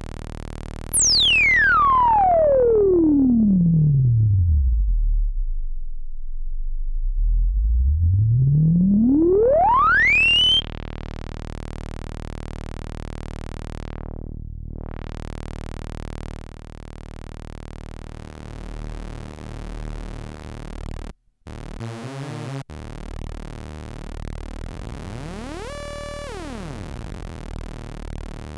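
Korg ARP Odyssey analogue synthesizer, heard dry from its headphone output. A single tone sweeps in pitch from very high down to a deep rumble, then back up before cutting off. It is followed by a steady buzzing tone whose timbre shifts, a brief stuttering break, and a few short chirps that rise and fall.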